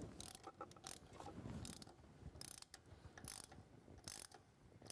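A 1/8 NPT tap being turned by hand with a tap wrench, cutting threads into an aluminium intake manifold. Faint, sharp clicks repeat a little more often than once a second.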